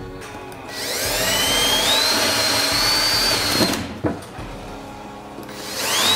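Cordless drill boring holes through plywood: the motor spins up with a rising whine about a second in, runs for about three seconds and stops, then spins up again near the end.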